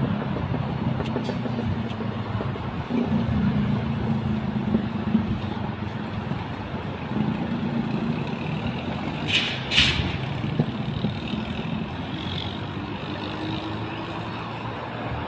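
El Insurgente electric interurban train running slowly along the viaduct into a station, a steady low rumble. There are two short bursts of air hiss a little over nine seconds in.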